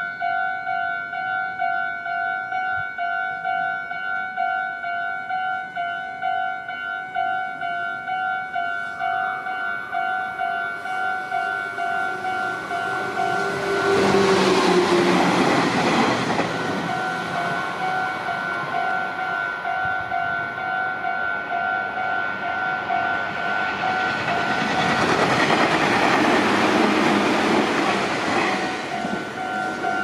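Japanese level-crossing electronic warning bell ringing in a steady repeating ding. About halfway through, a red Meitetsu electric train rushes through the crossing, briefly drowning out the bell. A second train passes near the end, with rail clatter, while the bell keeps ringing.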